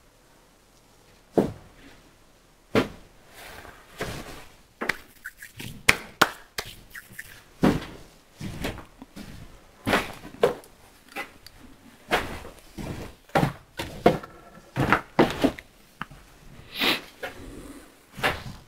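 Irregular knocks, thunks and clatter of someone moving about a workshop and handling things out of view.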